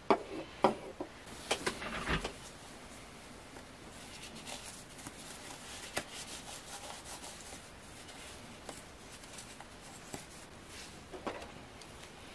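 Cloth rubbing as wet plastic parts of a disassembled air pump are wiped dry, with a few sharp clicks from the parts being handled in the first couple of seconds and scattered small knocks after.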